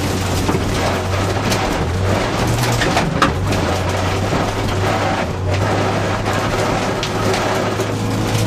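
Rally car's engine running hard, heard from inside the cabin, over a steady hiss of tyre and road noise on the wet stage surface; the engine note shifts briefly a couple of seconds in, and there is a sharp knock about three seconds in.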